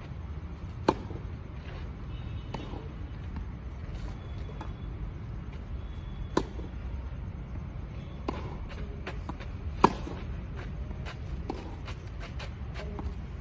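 Tennis ball struck by a racket: three sharp hits, the loudest about two-thirds of the way through, with softer ball bounces and scuffing steps between, over a steady low background rumble.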